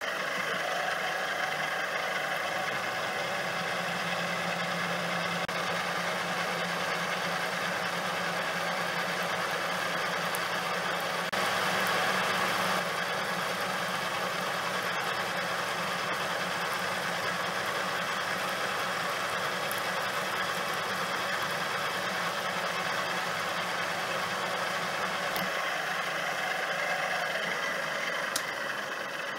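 Drill press running with a piloted counterbore cutting a recess for a ball-bearing race into a steel bracket: a steady motor hum with the cutter's noise over it. It starts abruptly and winds down near the end.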